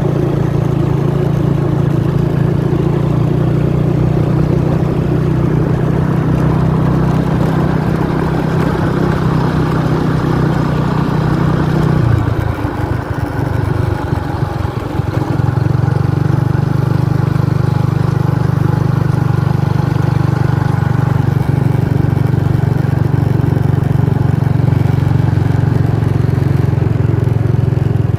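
An engine running steadily with a low hum; about twelve seconds in it drops away for roughly three seconds, then picks up again and runs on.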